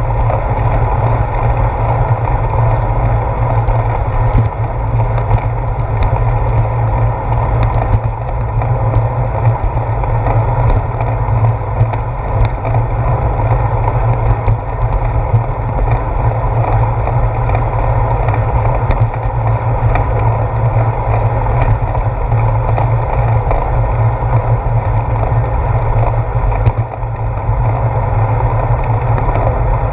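Steady rumble of wind and road vibration picked up through a handlebar-mounted GoPro Hero 4 as a bicycle rides along a concrete path, with small clicks and rattles scattered throughout.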